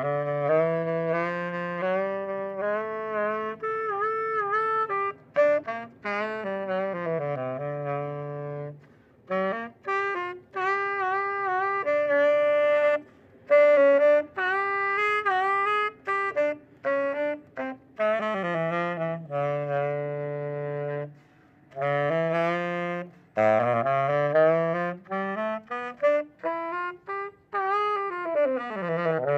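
Solo saxophone playing a melody in phrases separated by short breaks, some notes held long, with runs sliding down and back up near the end.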